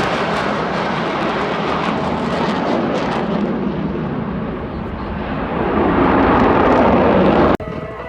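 Jet engines of F/A-18 Hornets roaring as they fly past, the sound fading and dulling, then building again about six seconds in. It cuts off suddenly near the end.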